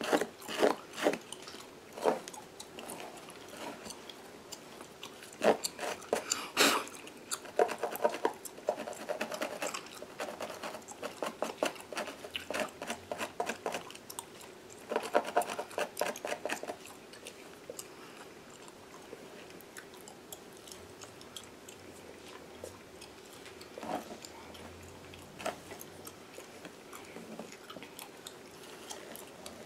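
Gum chewing and smacking: a run of sharp wet clicks and pops, coming in quick clusters through the first half and only now and then later. Underneath, soft scratching of fingers through a mannequin head's synthetic hair.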